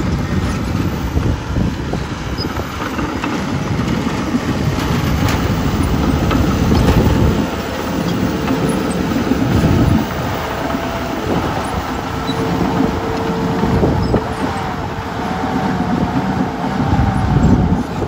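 Komatsu D51PXi crawler dozer working under load: the diesel engine runs hard while its steel tracks clank and rattle as the blade pushes dirt.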